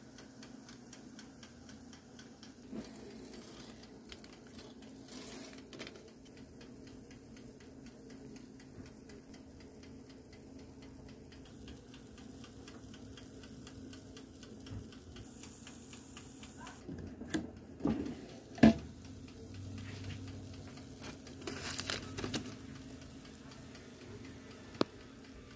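Toaster oven's mechanical timer ticking rapidly and evenly over a low steady hum. In the second half come several sharp metal clanks and scrapes as a utensil lifts the garlic bread off the foil-lined tray.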